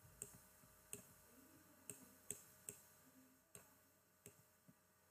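Near silence with about seven faint, short clicks at irregular intervals, from the input device used to handwrite on an on-screen slide.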